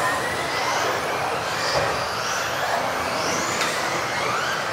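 Several electric off-road RC buggies racing, their motors whining up and down in pitch as they accelerate and slow for the corners, over a steady rush of tyres and motors.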